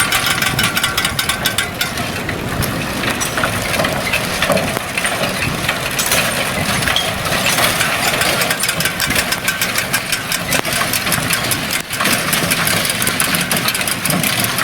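An engine running steadily at low speed, with a rapid, even clatter of machinery throughout.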